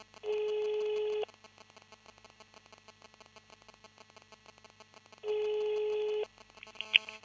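Telephone ringback tone heard on the calling line: two one-second rings of a single steady tone, about five seconds apart (one second on, four off), meaning the call is ringing out unanswered. Faint clicks follow near the end.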